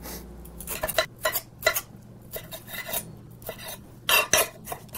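Chef's knife dicing green pepper on a marble cutting board: irregular sharp clicks of the blade striking the stone, about three a second, with a louder pair about four seconds in.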